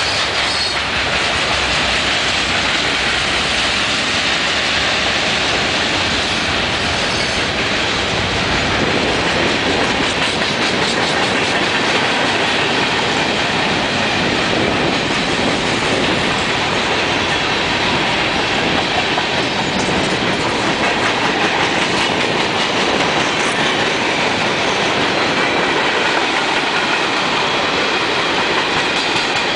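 Loaded freight cars of a passing freight train rolling by close at speed: lumber flatcars, gondolas, tank cars and covered hoppers, their steel wheels running over the rails in a loud, steady rumble.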